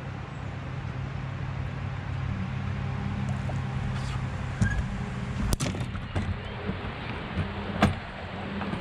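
A motor running with a steady low hum, with a few sharp knocks in the second half.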